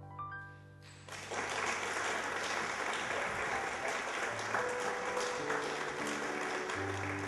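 Audience applause breaks out about a second in and carries on over piano music that keeps playing beneath it.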